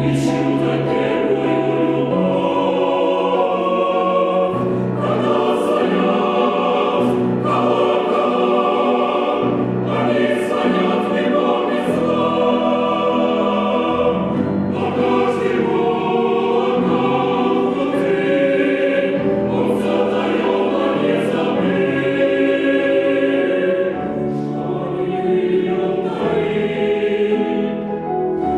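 Chamber choir singing a Russian choral song in full harmony, long held chords moving from one to the next.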